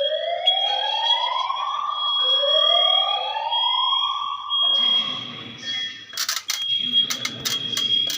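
Fire alarm sounder going off during a system test: two slow rising whoop sweeps, each about two seconds long, over a steady high-pitched tone. The sweeps stop about halfway through, leaving the tone with a few clicks and a low murmur.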